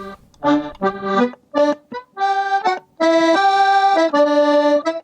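Instrumental music: a traditional-style tune played in short phrases broken by brief pauses, moving into longer held notes in the second half.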